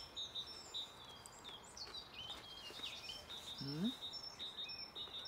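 Songbirds chirping and singing, many short high notes repeating throughout, over faint outdoor background noise. A short rising voice-like sound about three and a half seconds in.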